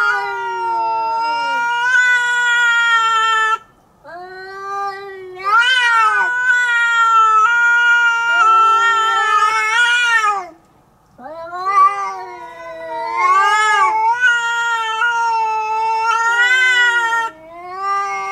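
A tabby and a calico cat caterwauling at each other in a face-off before a fight: long, drawn-out yowls that rise and fall in pitch, each lasting several seconds, with short breaks about three and a half and eleven seconds in.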